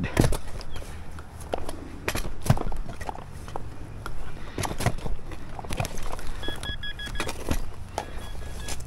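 Metal detector giving short, evenly spaced high beeps about two-thirds of the way in and again near the end, signalling a target under the turf. Under it, scattered knocks and rustles from walking and carried digging gear.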